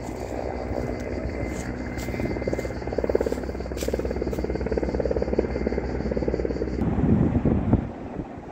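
Rosenbauer Fox 4 portable fire pump's engine running steadily with a rhythmic beat. The sound cuts off suddenly about seven seconds in and gives way to a second of louder, rougher rumbling.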